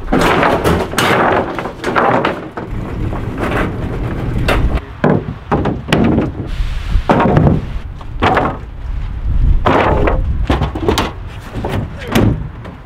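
Wooden lumber boards knocking and clattering as they are handled and slid into a pickup truck bed: many irregular sharp wooden knocks.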